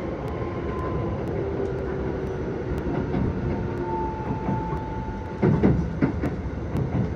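Keisei 3000 series commuter train running at speed: a steady rumble of wheels on rail with a faint steady whine. A couple of heavier clunks come about five and a half and six seconds in.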